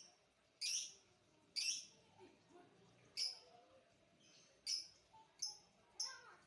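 A small bird chirping: about six short, sharp high-pitched calls, roughly one a second, with uneven gaps.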